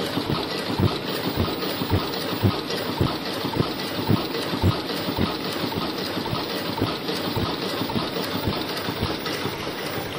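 Automatic 3-ply mask earloop welding machine running, its mechanism clacking in a fast, regular rhythm over a steady machine noise.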